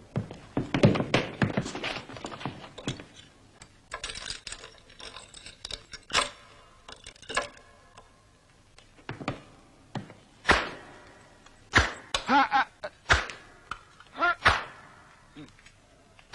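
A beating: a burst of scuffling, then a series of hard blows about every second or two, with a man crying out in pain between the later ones.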